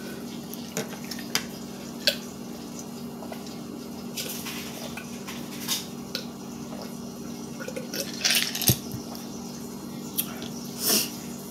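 Ice cubes clinking and knocking in a drinking glass as it is handled and set down, a scattered run of short clinks, the loudest a little after 8 seconds and again near 11 seconds, over a steady low hum in the room.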